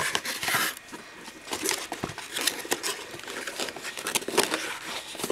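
Paper and packaging rustling and being handled: irregular crinkles and small knocks as the instruction manual and papers from a watch box are moved about.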